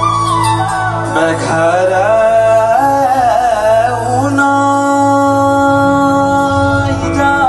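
Male voice singing a long, ornamented nyoli melody over folk-fusion band accompaniment, the line bending and wavering at first, then settling into long held notes about halfway through.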